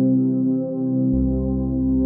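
Slow ambient music of held, layered tones; a deep bass note comes in about a second in.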